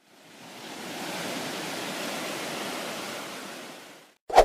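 Homemade ocean drum tilted slowly, its beads rolling across the drumhead in one wave-like swell that builds over about a second, holds, and dies away. A short sharp knock near the end is the loudest sound.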